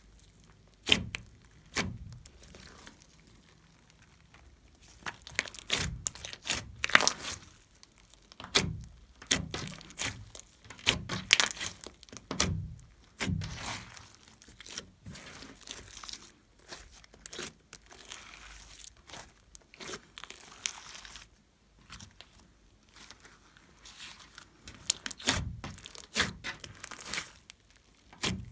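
Hands squeezing, stretching and folding glossy slime, making irregular sticky clicks, crackles and small pops, with a few heavier squelching thuds.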